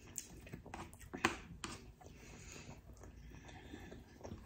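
Close-miked chewing with a few sharp clicks and scrapes of a plastic fork against a plastic takeout tray, the loudest click just over a second in.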